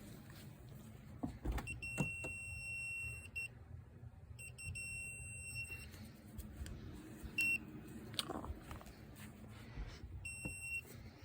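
Klein Tools voltage tester beeping in a high, steady tone: a beep of about a second and a half, a second of about a second and a half, a short blip, and a half-second beep near the end, with handling clicks between them.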